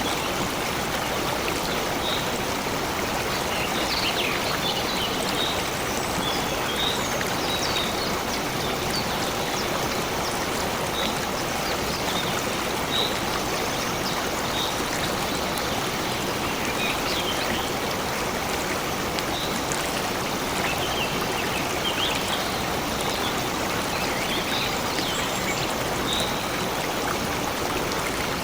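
Stream water flowing steadily, with birds giving short, high chirps every second or two.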